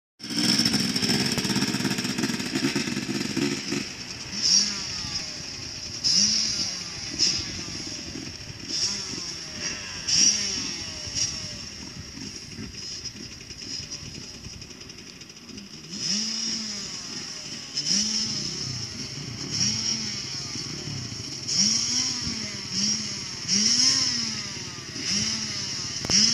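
Motocross dirt bikes running on a dirt track. One bike runs loudly and steadily for the first few seconds. After that, engines are revved up and down again and again, each rev rising and falling in pitch, with some passes louder than others.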